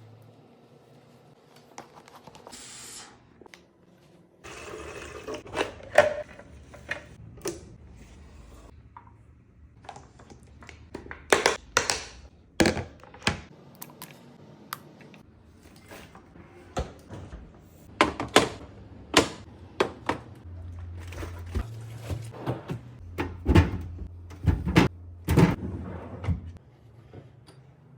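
Food containers knocking and clacking as they are set down and slid into fridge shelves and bins: irregular sharp knocks, with a stretch of rustling early on.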